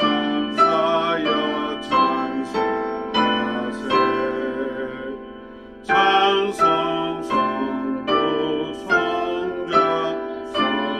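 Piano playing a slow hymn in struck chords, each dying away, with a man's voice singing along. The playing fades briefly near the middle before a loud chord starts it again.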